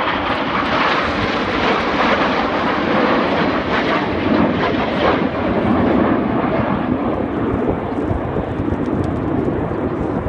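Jet engines of several BAE Hawk T1 trainers running in a steady, loud roar as the formation flies past in a turn, swelling a little in the middle and easing slightly near the end.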